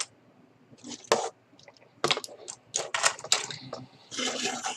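Hard plastic toy robot figures being picked up and set down, with irregular clicks and clacks and a brief scuffing near the end.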